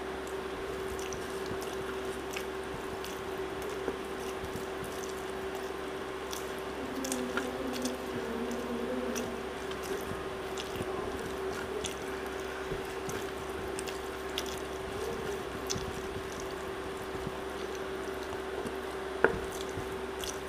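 Wet squishing of rice and curry being mashed and scooped by hand, with small sticky clicks of fingers and mouth while eating. A steady faint hum runs underneath, and one sharp click sounds near the end.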